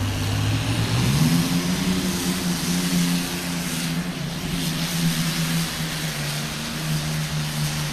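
P-51 Mustang V-12 aircraft engine in a modified pulling tractor, revving up about a second in as the tractor launches with the sled, then running hard at a fairly steady pitch under load.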